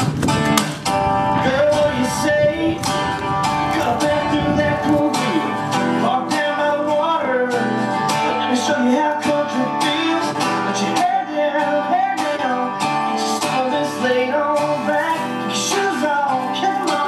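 Background music: a guitar-led country-style track playing steadily.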